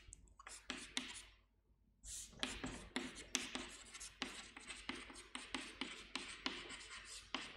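Chalk writing on a chalkboard: a few short scratching strokes, a brief pause about a second and a half in, then a long run of quick scratchy strokes and taps as a line of text is written.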